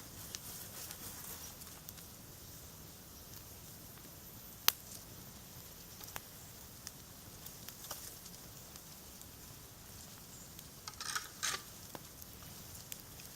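Campfire crackling sparsely over a low background hiss. There is one sharp snap about four and a half seconds in, and a short flurry of pops near the end.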